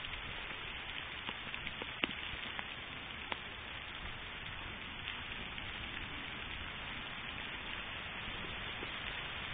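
Hail coming down on pavement, grass and fallen leaves: a steady dense hiss with a few sharp clicks of single hailstones striking, the loudest about two seconds in.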